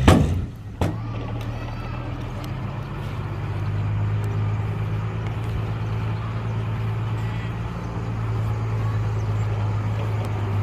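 Heavy construction machine's diesel engine running steadily at a low, even pitch, after two sharp bangs in the first second.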